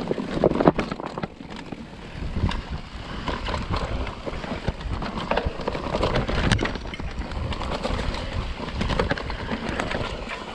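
Mountain bike descending a rocky, loamy dirt trail at speed: tires crunching and skidding over dirt and rocks, with frequent clicks and rattles from the bike, and wind rumbling on the microphone.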